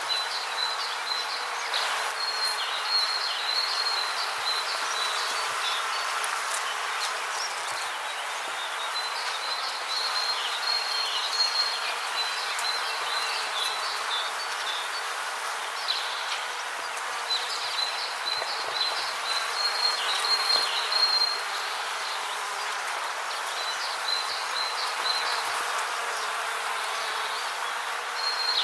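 Rainforest ambience: a steady hiss with an insect's high-pitched buzzing trill coming in bouts of a few seconds, pausing and starting again several times.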